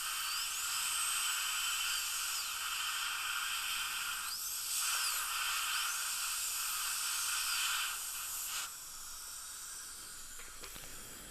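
High-speed dental handpiece cutting through a porcelain crown for screw access: a high whine that rises and falls in pitch as the bur bites and eases off, over the hiss of its water spray. The drilling stops about eight and a half seconds in, leaving a softer hiss.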